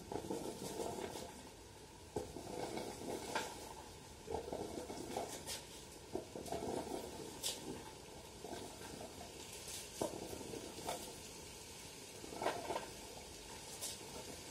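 Arecanuts being raked across a concrete drying floor: a long-handled rake scrapes and pushes the nuts in irregular strokes, and they rattle and click against one another and the concrete.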